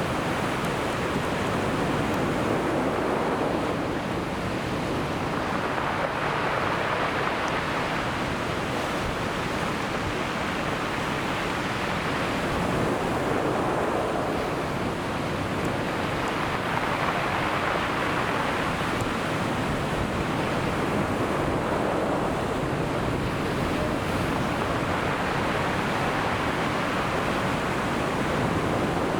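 Sea waves breaking on a beach: a continuous rush of surf that swells and eases every few seconds as each wave comes in and washes back.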